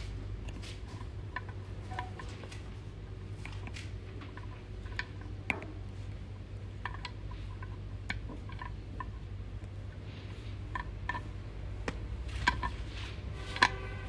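Light clicks and ticks of a small metal mesh filter insert being twisted and handled by fingers at a shower-head fitting, a few sharper clicks near the end, over a steady low hum.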